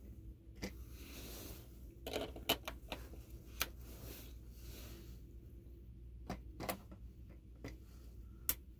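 Scattered sharp clicks and small knocks of camera gear being handled: a 2x tele-extender and camera body being fitted onto the bayonet mount of a 70-200mm telephoto lens.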